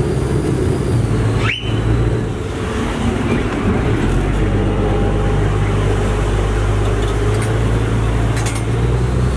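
River taxi boat's engine running steadily, with one short shrill whistle blast about one and a half seconds in, the crew's signal to the boat's driver. About four seconds in the engine note deepens as the boat pulls away from the pier.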